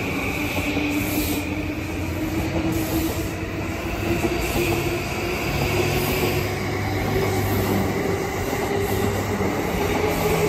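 E235-1000 series electric train accelerating out of the station: its traction-motor whine climbs steadily in pitch over the rumble and clatter of wheels on the rails. The train's rooftop air conditioners run loudly underneath.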